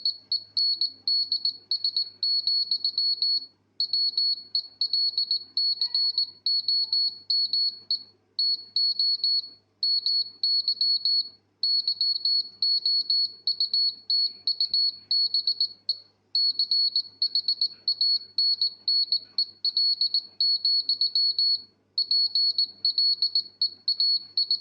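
Morse code (CW) sent as a single high-pitched beep tone, keyed on and off in quick dots and dashes with short pauses between groups.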